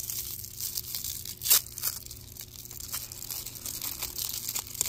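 Thin white wrapper crinkling and tearing as it is peeled open by hand off a small plastic toy figure, with one sharp, louder rip about a second and a half in.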